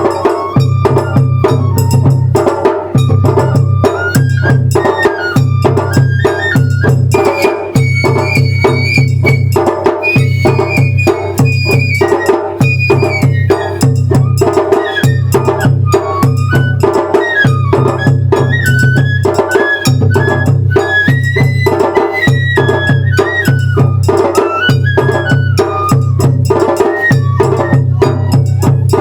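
Japanese festival hayashi music: a bamboo flute plays a stepping melody over a steady, driving beat of taiko drums and small struck percussion.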